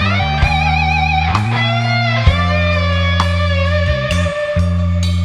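Rock band playing an instrumental break: an electric guitar lead with held notes that waver in vibrato, over bass guitar and drums.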